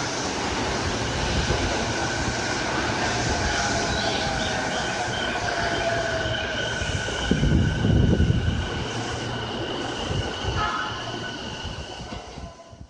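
JR Nambu Line electric commuter train (E233 series) running at the platform, with a steady high whine and a lower motor tone that falls in pitch midway. A louder low rumble comes about eight seconds in, and the sound fades and cuts off at the end.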